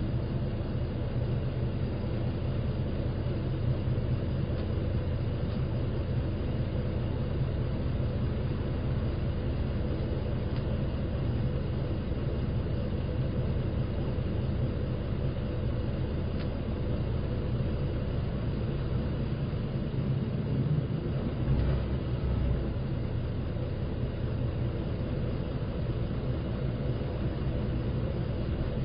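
Running sound of a Shimoden route bus heard from inside the cabin: a steady low engine and drive rumble with road noise. The rumble briefly swells louder about two-thirds of the way through.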